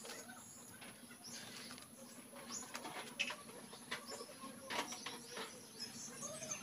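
Faint rustling and snapping of Bengal arum (kharkol) leaves being torn off their stalks by hand, with birds chirping in the background.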